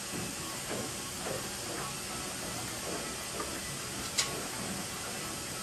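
Faint scraping of a hand tool being twisted against an aircraft wingtip over a steady hiss, with one sharp click about four seconds in.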